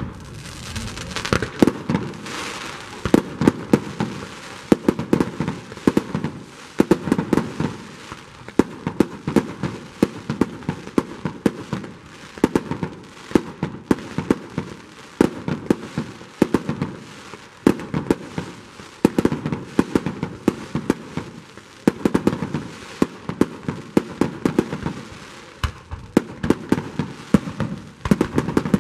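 Aerial fireworks display: a dense barrage of shells bursting, sharp bangs coming several a second with crackling between them.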